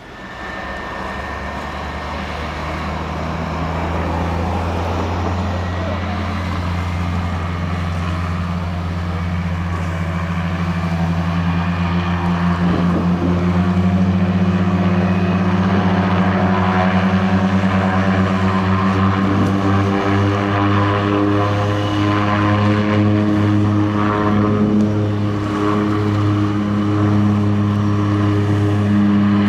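A de Havilland Canada DHC-6-200 Twin Otter floatplane's twin turboprop engines and propellers at takeoff power during its takeoff run on water. The propeller drone grows louder over the first dozen or so seconds, then holds steady, its pitch edging slightly higher.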